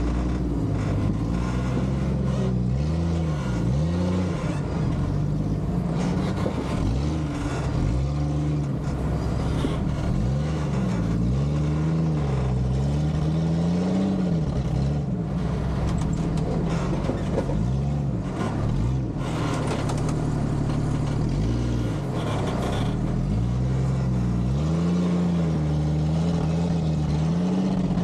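Off-road vehicle engine running under load, its pitch rising and falling repeatedly as the throttle is worked, with a few knocks.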